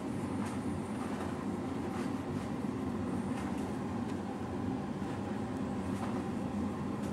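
Domestic cat purring, a steady low rumble while it is scratched about the head and neck.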